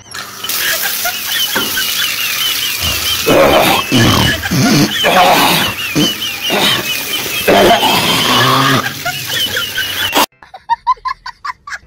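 A man rinsing his mouth and nose at a running tap, hawking, snorting and clearing his throat loudly, with water running from the tap. The harshest bursts come in the middle, and the sound cuts off shortly before the end.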